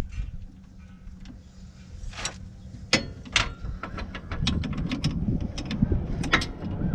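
Hand wrenches clicking and clinking on metal as the e-brake cable's nut is worked loose: scattered sharp clicks at first, then a quick irregular run of them from about four and a half seconds in, over a low rumble.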